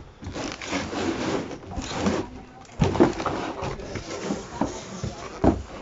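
Packaging being handled while an RC buggy box is opened: rustling and scraping, with a couple of sharp knocks about three seconds in and near the end.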